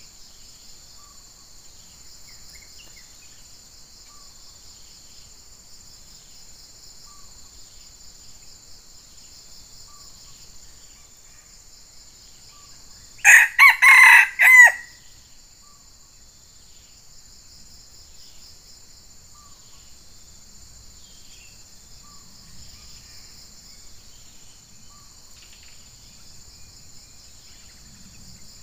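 Red junglefowl rooster crowing once, a short crow of about a second and a half broken into a few quick pulses, about halfway through. Insects buzz steadily throughout.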